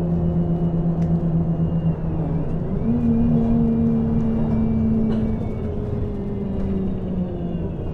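City bus engine running under way over a low rumble, its pitch stepping up about three seconds in as it pulls harder, then slowly easing off, with a few light rattles.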